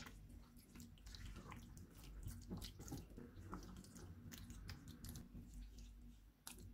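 Faint, irregular wet squelching and small clicks as raw chicken pieces are mixed into a yogurt, lemon juice and spice marinade in a glass bowl.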